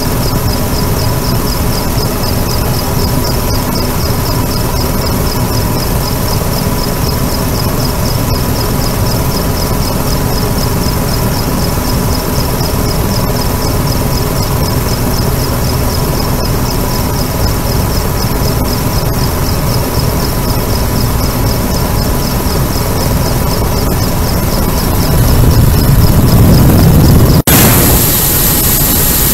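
Mi-35 helicopter in flight heard from on board: a loud, steady rush of rotor, engine and wind noise with a high whine that wavers slightly. About two seconds before the end the sound cuts abruptly to a brighter, hissier rush.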